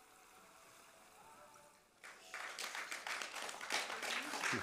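About two seconds of near silence, then an audience bursts into applause about halfway through, many hands clapping.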